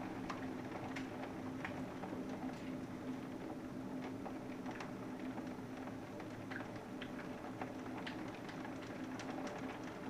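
Scattered, irregular ticks and taps, like light rain or drops striking a vehicle, over a steady low hum.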